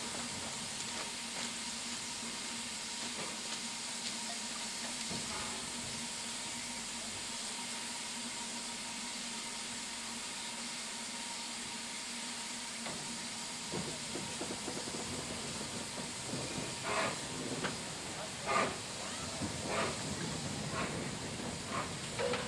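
Steam hissing steadily from BR Standard 4MT 4-6-0 No. 75078 as it stands at the platform, with a faint steady hum beneath. Over the last few seconds several short, pitched sounds break in over it, louder than the hiss.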